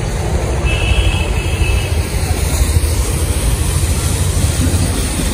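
Wind buffeting the handheld phone's microphone: a loud, continuous low rumble that flutters unevenly.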